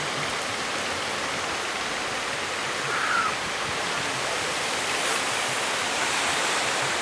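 Steady rush of breaking surf and rough sea waves, with a brief higher-pitched sound about three seconds in.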